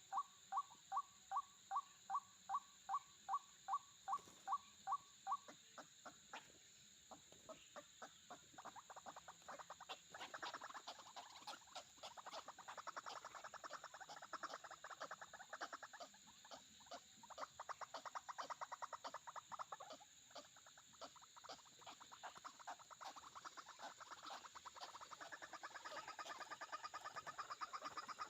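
White-breasted waterhen calling: a steady string of identical calls, about three a second, for the first few seconds, then a faster, denser chatter that builds toward the end.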